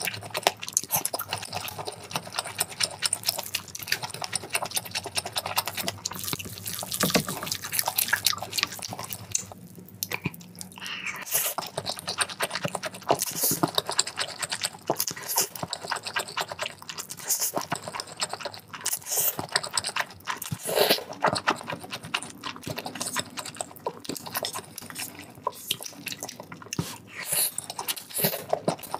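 Close-miked eating sounds of noodles: wet slurping and chewing, with a dense run of small smacks and clicks.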